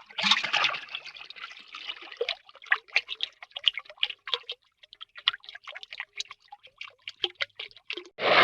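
Water sound effect: a splash that settles into a run of irregular drips and plops, thinning out toward the end. Just before the end a loud, steady rushing noise of water cuts in.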